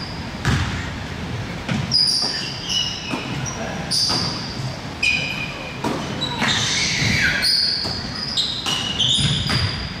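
Basketball being dribbled and bounced on a gym floor, with repeated thumps, while sneakers squeak sharply and players call out in a large hall.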